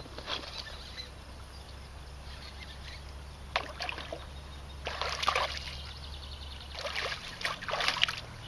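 Intermittent water splashing and sloshing beside a small fishing boat as a hooked bass is fought and brought in. Underneath runs a steady low hum that stops about seven seconds in.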